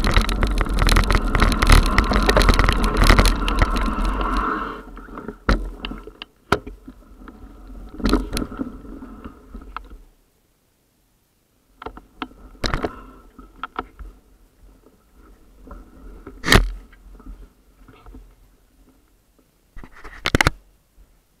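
Mountain bike rattling over a rough dirt-and-gravel track, picked up through a camera mounted on the bike: a dense clatter for the first four seconds or so, then it eases to scattered knocks and clicks, with a few sharp bangs later on.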